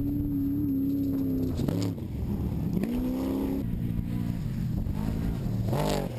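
Off-road trophy truck engine running hard at high revs, its pitch dropping about two seconds in, climbing again a second later, and rising then falling sharply near the end as the throttle is worked.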